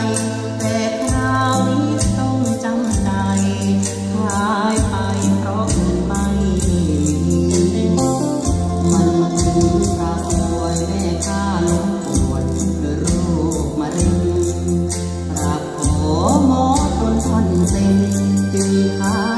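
A Thai song with a singer's voice over a steady beat and deep bass notes, played back through a hi-fi system: Arcona 40 bookshelf speakers driven by a Bryston B135 integrated amplifier.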